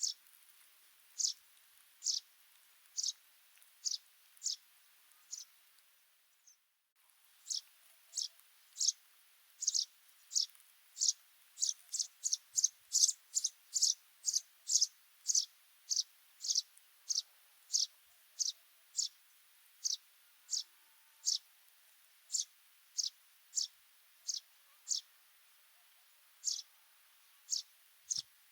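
Sudan golden sparrow chirping: a long series of short, high single chirps, about one a second at first and closer to two a second after a brief dropout about six seconds in.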